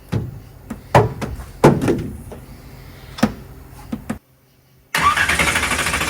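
A few sharp knocks and clanks, then about five seconds in a small-block Chevy V8 starts cranking on its starter with a loud, fast rhythmic churn.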